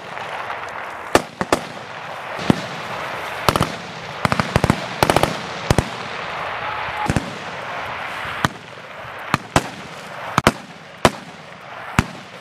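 Rifle fire: irregular single sharp shots and short quick strings of shots, the densest run about four to five seconds in, over a steady background hiss.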